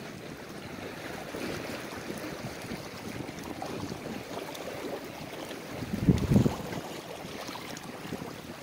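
Wind and sea noise on a small open boat, with wind buffeting the microphone. About six seconds in there is a brief, louder low rumble.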